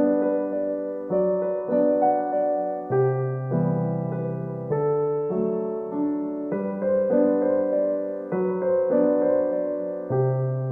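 Background piano music: slow sustained chords, with a new chord struck about every second and fading after each strike.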